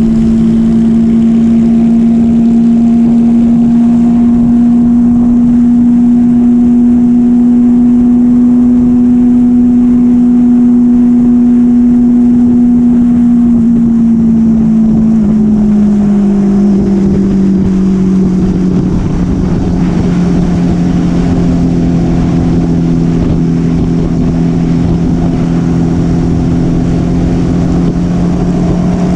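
Motorcycle engine running steadily at cruising speed under wind rush. About halfway through, the engine note slides down over a few seconds and settles at a lower steady pitch as the bike eases off.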